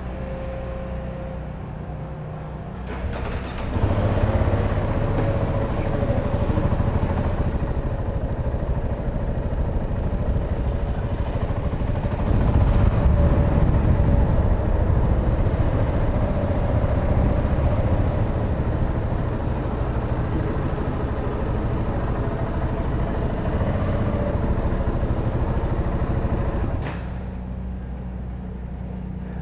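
2015 KTM 690 Enduro R's single-cylinder engine ticking over, then getting louder about three seconds in as the bike is ridden off. It runs under way for over twenty seconds and is loudest around the middle. Near the end it drops back to idle.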